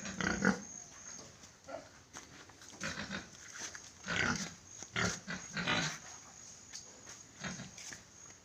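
Pigs grunting in short, irregular calls, several in a row around the middle.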